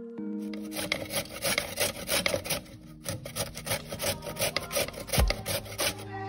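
Raw carrot rasped up and down a flat metal grater in quick repeated strokes, about three or four a second, with a brief pause about halfway through.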